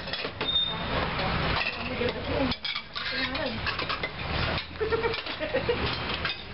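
Dishes and cutlery clinking in an eatery, with scattered voices in the background and the low running of an idling engine coming and going.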